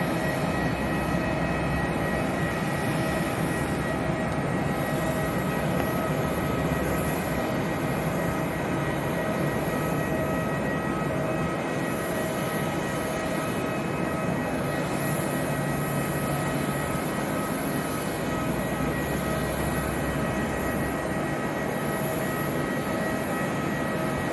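Jet engines of an Airbus A320-family airliner running steadily as it moves slowly along the runway before takeoff: an even rumble with a steady whine on top.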